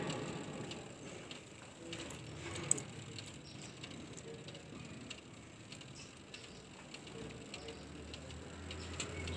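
Faint scattered clicks of steel surgical instruments being handled during suturing, with a sharper click about two and a half seconds in. A low hum comes in near the end.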